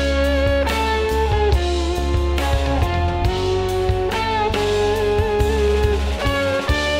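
A full band mix playing back through a mastering compressor: a sustained, gliding electric guitar melody over drums and bass, jazz-rock in style.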